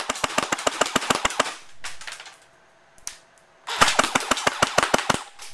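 JLS SCAR-L electric airsoft rifle (AEG) firing on full auto in bursts at about seven shots a second, a low rate of fire for an AEG. A long burst is followed by a few short ones, then a second long burst.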